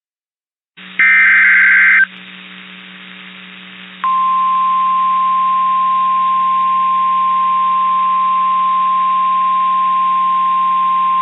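NOAA Weather Radio alert signal. About a second in comes a one-second screech of SAME digital header data, then a short stretch of radio hiss and hum. From about four seconds in, the single steady 1050 Hz warning alarm tone sounds, which announces that a new warning is about to be read.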